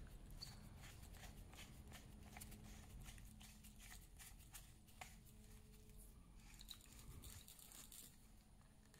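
Near silence, with faint small clicks and rubbing from brass hose fittings being coupled by hand between a garden-hose spray nozzle and a foam sprayer.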